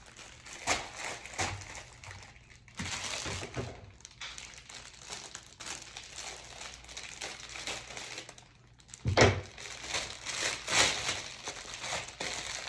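Plastic packaging bags crinkling and rustling as they are handled and cut open with scissors, with scattered sharp crackles and a single thump about nine seconds in.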